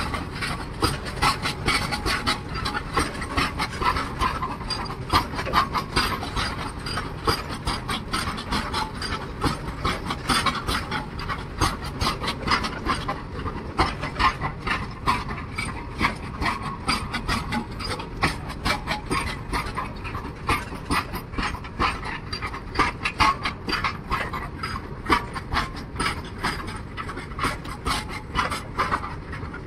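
BOXN open freight wagons rolling past, their wheels clattering over the rail in a fast, irregular run of clicks and knocks over a steady rumble.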